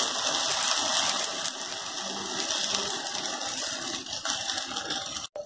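Onions frying in hot oil in a non-stick pan, sizzling and crackling as ground tomato is poured onto them. The sizzle fades gradually.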